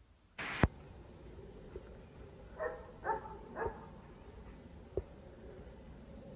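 A sharp click, then a Dutch Shepherd dog gives three short barks about half a second apart, followed by a second, softer click.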